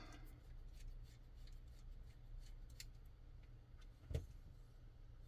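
Faint small clicks and rubbing as a short screw is driven into a folding knife's handle, with one sharper tap about four seconds in.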